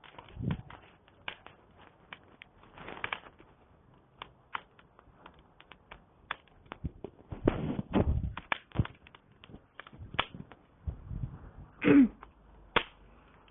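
Campfire wood crackling and popping in irregular sharp snaps, with a few low rumbling gusts and one louder short sound near the end.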